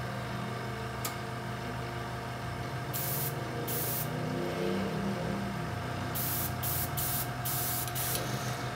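Small airbrush compressor running steadily as it builds pressure, with several short bursts of air hissing from the empty airbrush as its trigger is pressed, the first about three seconds in and a quick cluster near the end.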